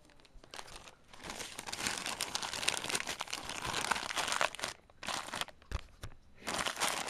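White packing wrap crinkling and rustling as a camcorder is lifted out of its cardboard box and unwrapped. The rustle runs steadily from about a second in for several seconds, then comes in two shorter bursts near the end.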